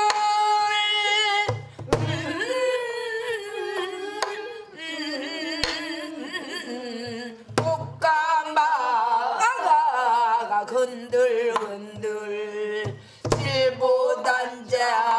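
A woman sings a Korean folk song in the Namdo minyo style, with a wavering vibrato line. She accompanies herself on a buk barrel drum: a deep drum stroke about every six seconds, with a few sharp clicks of the stick in between.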